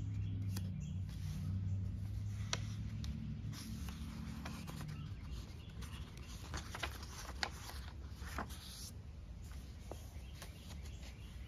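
Paper pages of a hardcover journal being turned and smoothed by hand: soft rustles and short paper flicks, with birds singing in the background. A low steady hum fades away over the first half.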